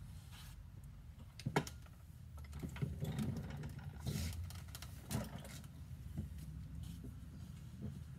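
Scattered knocks and clicks with rustling from a person shifting in a wheeled chair and getting up, over a steady low hum.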